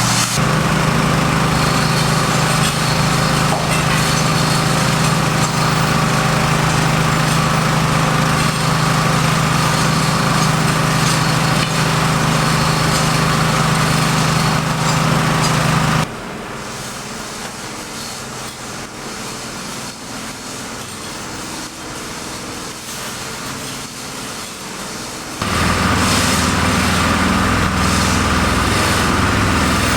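A small engine running steadily. It drops suddenly to a much lower level about halfway through, then comes back at full level near the end.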